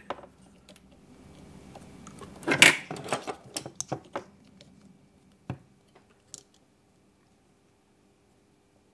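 Hands handling wires and small parts on a quadcopter frame: scattered light clicks and rustles, the loudest a rustle about two and a half seconds in, then a single sharp knock. The sounds stop about six and a half seconds in.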